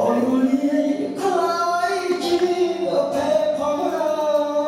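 Background music: a singing voice holding long, gliding notes over accompaniment.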